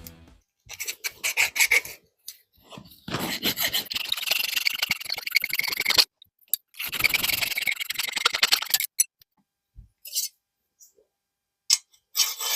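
Steel saw-blade stock being abraded while it is shaped into a blade: rough rasping and scraping in several separate stretches, the longest about three seconds, each stopping abruptly.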